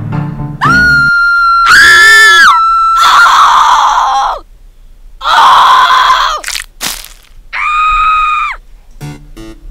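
Loud screaming in three bouts: a long high scream held on one pitch from about half a second in, overlapped by a second shorter scream, then a rougher scream mid-way and a shorter one near the end, with two sharp clicks in between.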